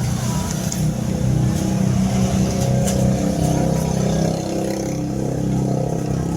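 An engine running steadily, with a few faint light clicks.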